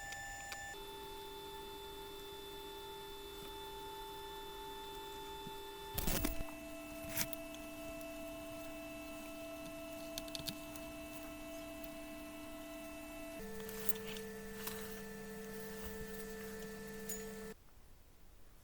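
Steady electronic humming tones, a few pure notes held together, that jump to a new pitch three times, with a thump at the second change, and cut off near the end.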